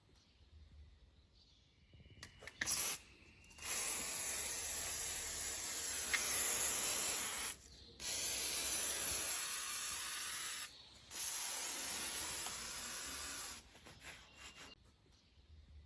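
WD-40 aerosol can spraying with a steady hiss in four bursts: a short one about two and a half seconds in, then three long ones of three to four seconds each, separated by brief pauses.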